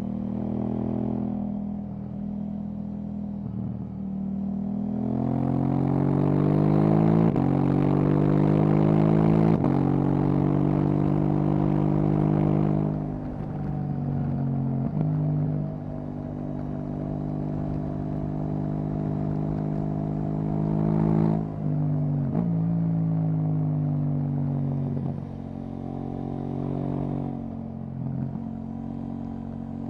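KTM 790 Duke's parallel-twin engine through an Akrapovic exhaust, heard on the move: the pitch climbs hard twice, with a gear change between, from about five to ten seconds in. It then runs steadily, and the pitch drops in short steps several times in the last third.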